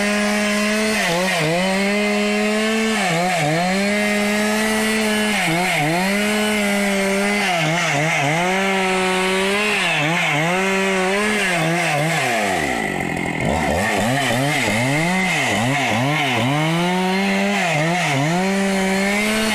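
Chainsaw running at high revs while cutting wood, its engine note dipping briefly every second or two as the chain bogs under load in the cut. A little past halfway the revs fall right down, then it revs back up and carries on cutting.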